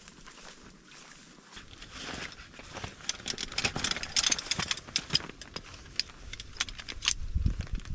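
Footsteps crunching through snow: an irregular run of sharp crunches and clicks that thickens about two seconds in, with a few heavier thuds near the end.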